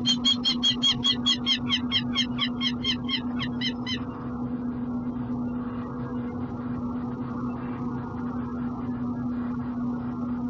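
Peregrine falcon giving a rapid series of harsh calls, about five a second, that stops about four seconds in, over a steady low hum.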